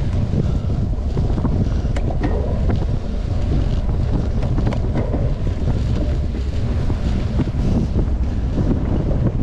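Steady wind buffeting the microphone of a moving mountain-bike rider's camera, a heavy low rumble, with scattered light clicks and rattles.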